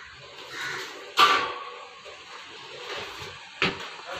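Modular kitchen cabinet drawers being slid and worked by hand: two sharp knocks, a loud one about a second in and a smaller one near the end.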